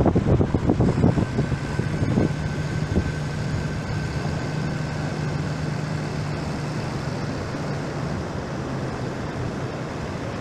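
Tractor engine running steadily as it tows a boat out of the surf and up the beach. Wind buffets the microphone for the first couple of seconds.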